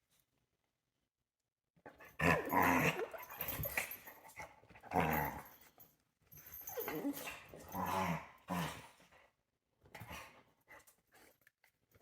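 Small dogs growling and barking at each other in repeated bursts, starting about two seconds in and weakening near the end.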